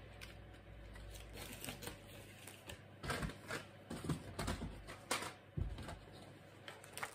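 Faint handling noises: rustling and a few soft knocks as Christmas decorations and their packaging are put down and picked out while sorting through them.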